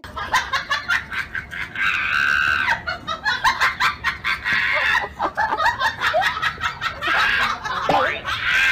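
A husky vocalizing in high, wavering whines and yowls that come and go, over a dense run of sharp clicks.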